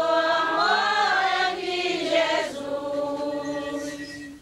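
Voices singing a slow chant together, without instruments, holding long notes with a rise and fall in pitch about a second in. The singing cuts off suddenly near the end.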